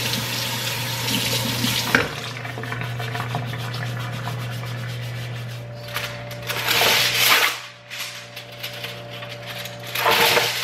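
Kitchen tap running while a potato is scrubbed under the stream. Then aluminum foil is pulled off its roll and crinkles, twice.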